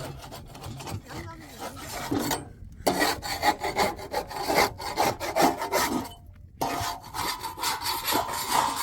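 Rough scraping strokes in quick succession, in runs broken by two short pauses.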